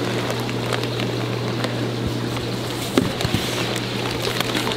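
Plastic fish bags rustling and crinkling as they are handled and lifted out of a shipping box, with a few louder crackles about three seconds in, over a steady low background hum.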